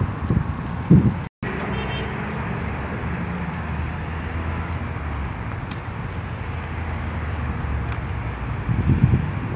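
Steady low rumble of a car engine running, after a few gusts of wind on the microphone in the first second. The sound drops out for an instant just after.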